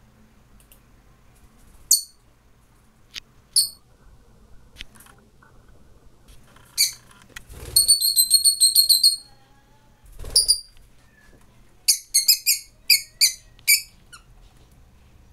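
Rosy-faced lovebirds giving shrill, high-pitched chirps during courtship feeding. A few single chirps come first, then a quick run of about ten near the middle, one more chirp, and a second run of about six near the end.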